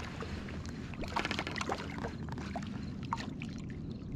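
Water lapping and splashing lightly against an inflatable float tube, over a steady low rumble, with a quick run of small splashes about a second in.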